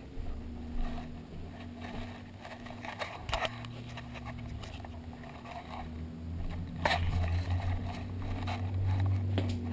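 Handling noise picked up by a handheld GoPro camera's own microphone: rubbing and scrapes, with a few sharp knocks, over a steady low hum and rumble that grows louder in the last few seconds.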